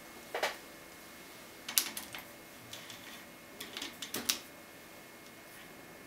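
Light metallic clicks and taps of lockpicking tools being handled at a brass euro-profile lock cylinder clamped in a vise, coming in a few short clusters.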